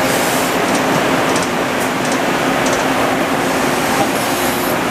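Large floor fan running close by: a steady, loud rush of air with a faint low hum.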